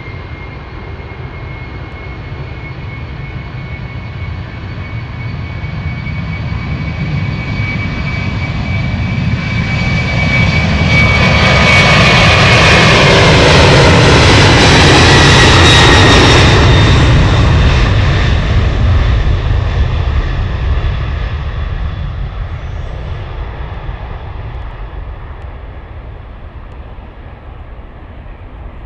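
Boeing 767-300ER's twin General Electric CF6-80C2 turbofans at takeoff thrust as the airliner rolls down the runway and lifts off. The jet noise grows louder, peaks about halfway through with a high fan whine that drops in pitch as the aircraft passes, then fades as it climbs away.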